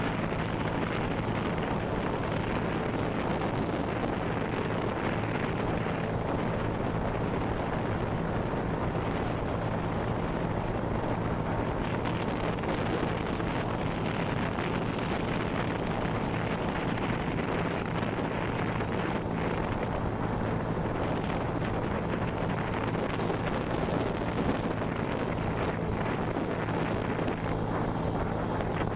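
49cc Huasheng CVT scooter engine running steadily at cruising speed, its low hum holding an even pitch throughout, under a constant rush of wind on the handlebar-mounted microphone.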